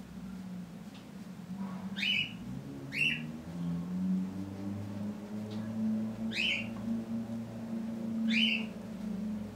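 A bird chirping in the background: four short, clear chirps, each a quick downward sweep, spaced a second to a few seconds apart, over a low steady hum.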